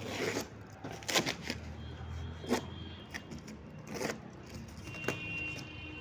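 Woven plastic sack being torn and pulled open off a cardboard box: rustling with several short, sharp rips and crackles, the loudest about a second in and about two and a half seconds in. A faint low rumble runs underneath.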